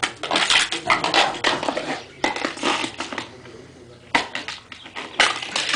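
A small flower pot clattering and scraping on a concrete floor as a dog pushes and bites at it. The sound comes in bursts of rattling: a long one in the first two seconds, another a little later, a short knock about four seconds in, and a last burst near the end.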